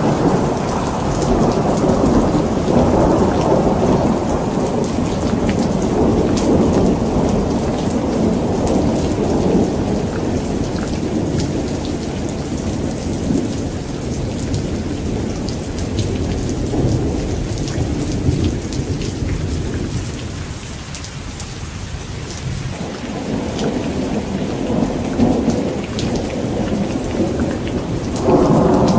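Steady rain with rolling thunder rumbling throughout. The rumble eases about two-thirds of the way through and builds again near the end.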